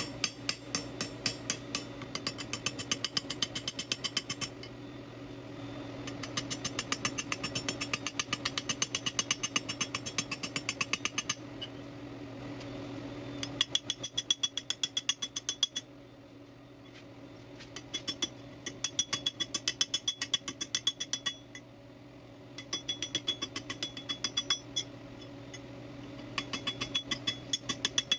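Fast, light hammer blows on thin-walled hollow steel tube, about four to five strikes a second, in runs broken by short pauses, rounding up the forged branch arms. A steady low hum runs underneath.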